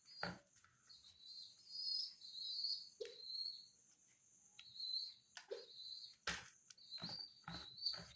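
Pigeon squab giving high, thin squeaking cries in short bouts, typical of a nestling begging while being hand-fed, with several sharp clicks in between.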